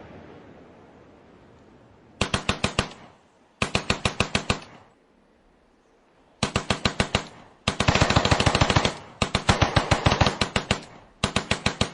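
Automatic gunfire in several short bursts of rapid, evenly spaced shots, about ten a second, with brief pauses between bursts. It opens on the fading rumble of an explosion.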